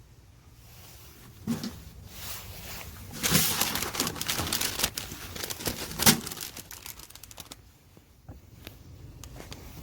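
Packaging crinkling and rustling as it is handled, busiest in the middle, with a couple of sharp knocks.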